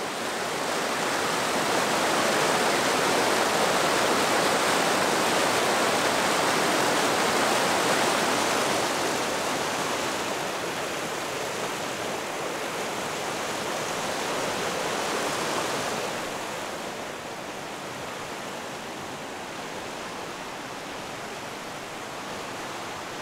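Mountain creek rushing and splashing over boulders in a steady, full roar of water. It is loudest at first, eases off after a few seconds and drops lower about two-thirds of the way through.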